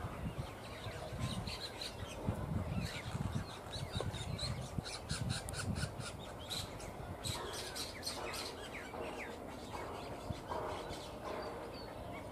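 Small birds chirping: many short, high chirps in quick runs, thickest around the middle. Low rumbling sounds come and go during the first half.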